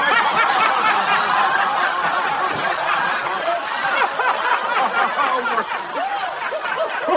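A crowd laughing and chuckling together, many voices overlapping without a break.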